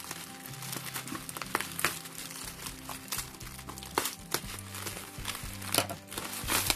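Bubble-wrap packaging crinkling with scattered sharp crackles as scissors cut it open and hands pull the plastic apart, over background music.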